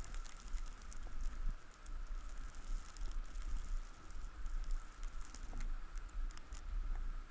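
Wind rumbling on the microphone of a body-worn action camera while skiing slowly on snow, with scattered light ticks and crackles throughout and a faint steady high hum underneath.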